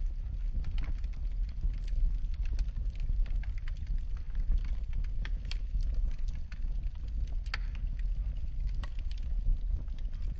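Wood fire burning in a fireplace, with a steady low rumble of flames and frequent irregular sharp crackles and pops.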